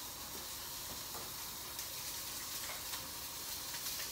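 T-bone steak sizzling steadily as it sears in a dry pan over high heat, with no oil or fat, with a few faint crackles.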